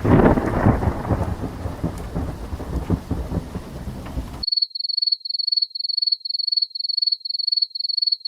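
Thunderstorm sound effect: a thunderclap rumbling over steady rain, cutting off sharply about four and a half seconds in. Then a high-pitched electronic beeping, about three beeps a second at one steady pitch.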